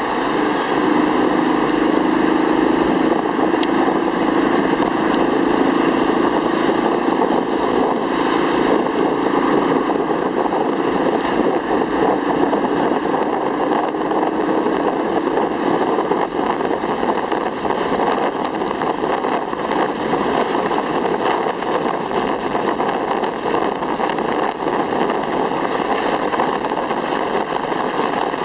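Three-wheeled motorcycle's engine running steadily on the move, mixed with wind and road noise, with a low hum standing out through the first half.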